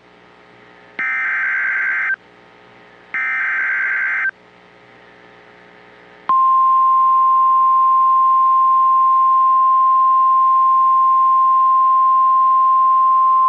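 NOAA Weather Radio SAME alert header: two buzzy bursts of digital data tones, each about a second long and a second apart, then about six seconds in the loud, steady 1050 Hz warning alarm tone begins. Together they signal the start of a new warning broadcast, here a severe thunderstorm warning.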